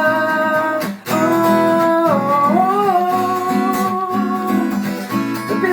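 Song with acoustic guitar strumming under long, wordless sung notes that bend in pitch. There is a brief break about a second in.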